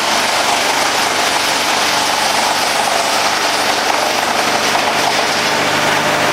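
Demuth mobile drum chipper running steadily off a Massey Ferguson tractor's PTO: a loud, even rushing noise from the chipper over a low, steady tractor engine hum.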